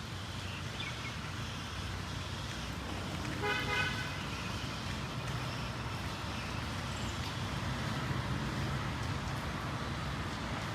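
A short single horn toot about three and a half seconds in, over a steady low rumble like road traffic.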